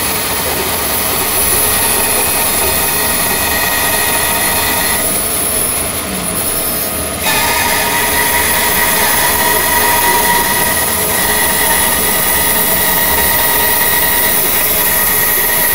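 Bandsaw running and ripping lengthways through a large log, a steady machine noise with a high whine, over the rush of a dust extractor. The whine drops away about five seconds in and comes back abruptly about two seconds later.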